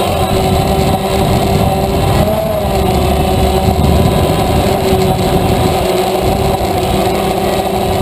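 DJI Phantom quadcopter's motors and propellers whining steadily, recorded by the camera on the drone, over a low rumble of wind on the microphone. The pitch bends briefly about two to three seconds in as the drone manoeuvres.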